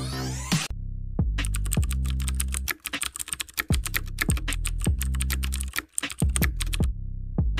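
Keyboard-typing sound effect, a fast run of clicks, over electronic music with deep bass notes that now and then drop in pitch. A rising glitchy sweep opens it.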